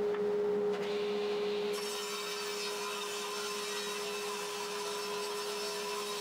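A table saw's motor hums steadily. About two seconds in, the blade starts ripping through a 2-inch-thick beech slab, adding a steady cutting noise over the hum.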